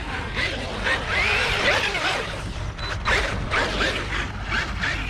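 Electric motor and gears of a Traxxas RC truck whining, the pitch sweeping up and down again and again as the throttle is worked, over a low rumble of wind on the microphone.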